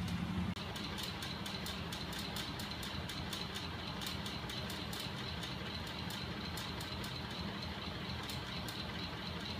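Battery-driven DC electric motors and the crank-and-flywheel linkage of a homemade magnet engine rig running: a steady mechanical whir with repeated clicks, several a second. A low hum stops at a brief break about half a second in.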